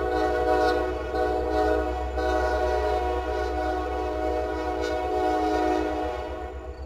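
Locomotive air horn holding one long chord of several notes over the low rumble of the train, easing off slightly near the end.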